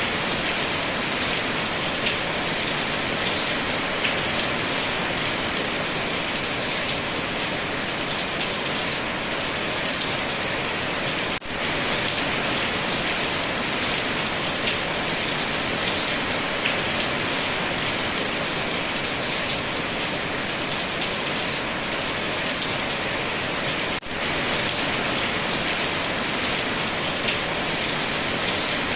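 Rain falling steadily, an even hiss that drops out for a moment twice.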